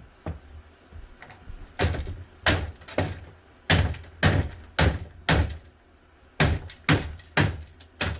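About a dozen hard blows smashing a plastic box fan, roughly two a second, starting about two seconds in with a short pause near the end.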